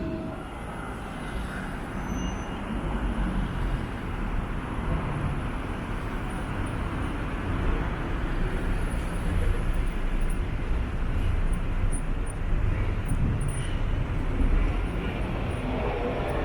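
Town-centre road traffic going by, a steady rumble of passing vehicles.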